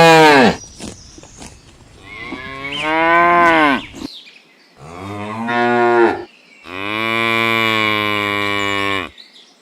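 Cow mooing: the tail of one moo, then three long moos, the last held at a steady pitch for over two seconds.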